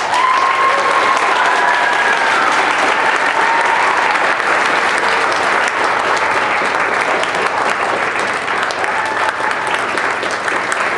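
Theatre audience breaking into loud, sustained applause, starting suddenly as the closing song ends.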